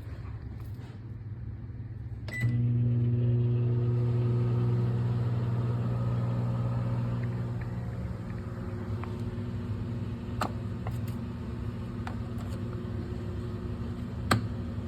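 A kitchen appliance switches on with a click about two and a half seconds in and runs with a steady low electrical hum, which eases off somewhat after the middle. A couple of sharp clicks come later.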